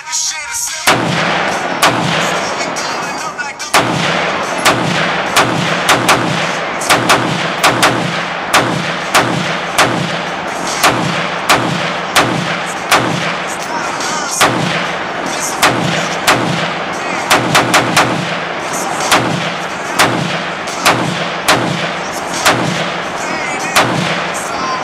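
Rapid gunfire from a short-barrelled 5.56 AR pistol fitted with a muzzle brake: dozens of sharp shots starting about a second in, irregularly spaced and sometimes in quick strings.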